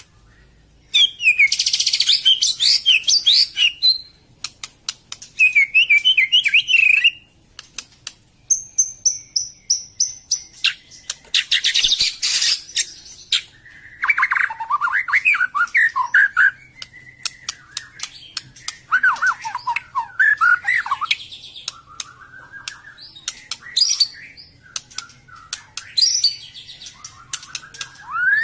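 White-rumped shama singing in the harsh 'tembakan kasar' style: phrases one to three seconds long of rapid rough, clicking notes, fast sliding whistles and a thin high whistle, separated by short pauses.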